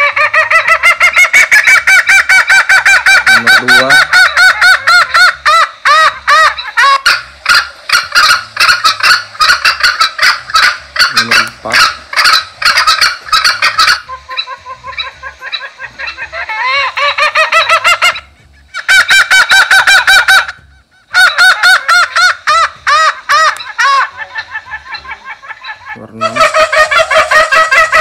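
Recorded bird calls played back very loud through a ZY E388 electronic game caller's loudspeaker: rapid, repeated shrill calls, changing to a different call about halfway through, with two short breaks in the last third.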